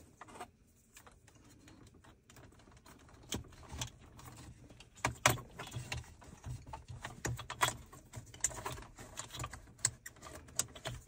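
Charging cable being worked through the plastic centre-console tunnel: irregular clicks, taps and scrapes as the cable and its connector rub against the trim and hands work in the console openings, sparse at first and busier from a few seconds in.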